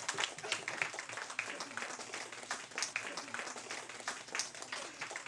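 A small group of people clapping, with uneven, irregular claps.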